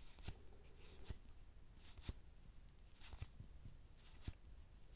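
Magic: The Gathering cards being slid one at a time from one hand-held stack onto another: faint, short papery swishes about once a second.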